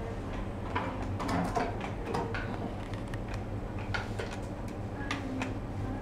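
Scattered soft clicks and rustles as a long-haired cat brushes its fur and nose against the phone, over a steady low room hum.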